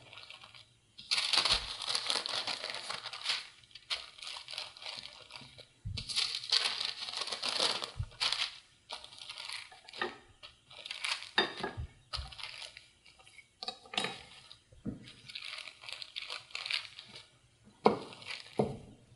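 Wooden rolling pin rolling pie dough under a sheet of parchment paper: repeated stretches of paper rustling and crinkling, about a second or two each, with scattered light knocks in between.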